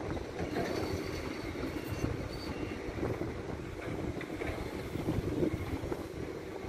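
Sumitomo SH210 hydraulic excavator's diesel engine running steadily as the machine swings its boom and bucket and digs.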